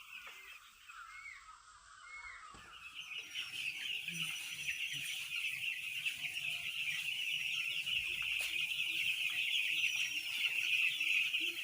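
A large brood of young chicks peeping all at once, a dense chorus of high cheeps. It is thinner for the first two or three seconds, then fills in and holds steady.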